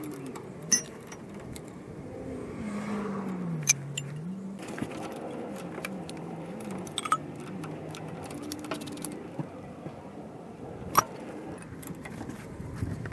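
Hand tools working the 14 mm driveshaft bolts and nuts at a rear differential: metal clinking and jingling with several sharp metallic clicks, the loudest about eleven seconds in, over a low wavering hum.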